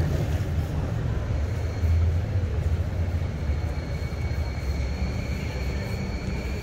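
City street traffic: a steady low rumble of passing motor vehicles. A high, steady whine joins about two and a half seconds in and holds.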